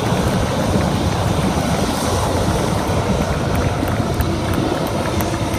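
Aircraft flying over: a steady, loud engine noise.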